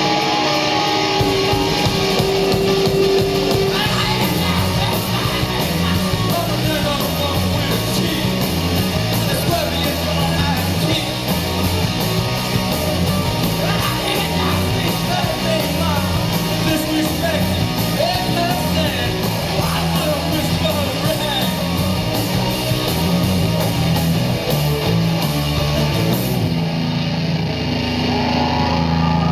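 Rock band playing live at high volume through a concert PA: electric guitars, bass and drums driving a steady beat, with a singer's voice over them.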